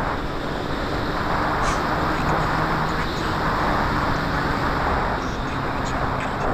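Wind rushing over the microphone of a camera mounted on the nose of an electric RC biplane in flight, over the steady hum of its Scorpion SII-4025-520KV brushless motor and 15x8 propeller.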